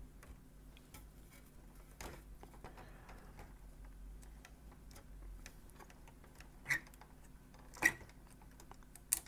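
Soft clicks and taps of fingers handling a cassette deck's tape transport while stretching a new rubber belt onto its pulleys, with three sharper clicks in the last third, about a second apart.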